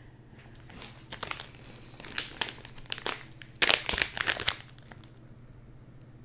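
Clear plastic zip-top bag holding a wax melt crinkling as it is handled, a series of sharp crackles that are thickest about four seconds in and stop shortly after.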